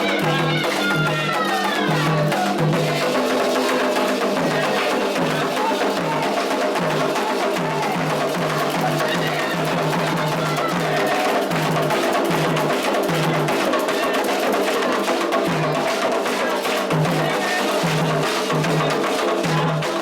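Candomblé ritual music: atabaque hand drums playing a fast, steady rhythm with a sharp struck percussion part on top, and voices singing a chant.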